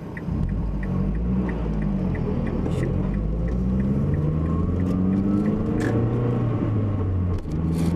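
Cabin sound of a 2007 Mazda3 with a turbocharged 2.3-litre four-cylinder driving: the engine drone climbs steadily in pitch as the car accelerates, then drops briefly near the end as if for a gear change. A light regular ticking, about three a second, runs under it.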